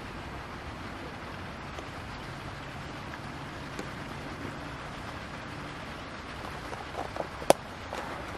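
Fishing tackle being unpacked and handled, over a steady outdoor background hiss: a few soft knocks near the end, then one sharp click.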